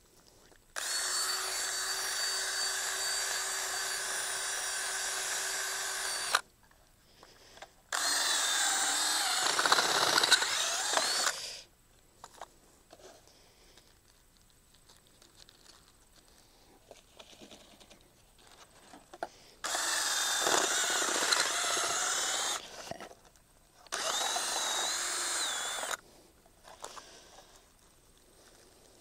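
Cordless drill run in four separate bursts, spinning a boring bit down into pasture soil to pull up soil samples. The first burst holds a steady whine, while in the second the motor's pitch wavers and dips as the bit works under load.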